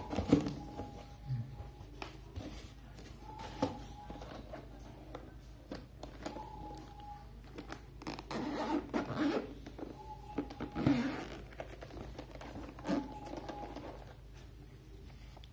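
Hands handling a zippered hard-shell drone case: scattered rubbing, scraping and light knocks against its textured shell.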